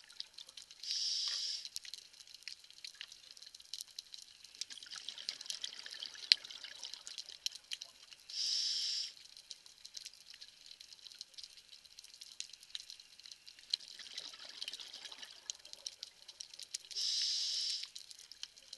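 Scuba diver breathing through a regulator, heard underwater. Three short hisses of inhalation come about eight seconds apart, each followed a few seconds later by a longer bubbling exhalation. A steady fine crackle of clicks runs underneath.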